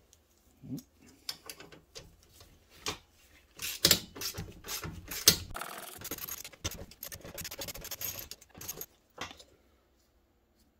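Hand tools working on a snowmobile's rear suspension skid: a wrench and metal parts clinking, knocking and scraping as the slider pieces are unbolted and pulled off. The clatter is busiest through the middle and dies away about a second before the end.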